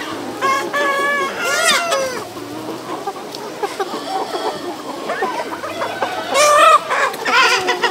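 A large flock of chickens clucking and calling, with clusters of loud calls about half a second in and again about six seconds in.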